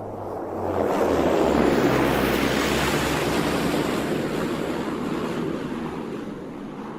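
Beechcraft King Air twin turboprop passing by on approach. Its rushing engine and propeller noise swells to a peak about two seconds in, then slowly fades, while a low propeller drone drops in pitch as it goes by.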